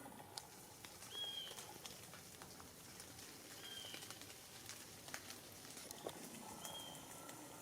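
A bird calling faintly: a short high whistled note, repeated three times about two and a half seconds apart, over scattered faint ticks and patter.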